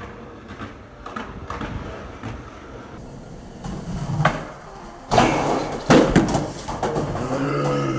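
Skateboard hitting concrete as a skater bails a trick down a stair set. There is a sharp crack about four seconds in, then two loud slams and clattering about a second apart as the board and rider hit the ground.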